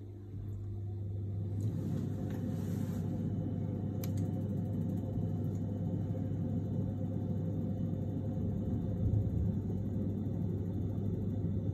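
Atron wall-mounted gas boiler starting up on battery power through a pure-sine inverter. Its running noise rises over the first two seconds and then holds steady over a constant low hum, with a single sharp click about four seconds in.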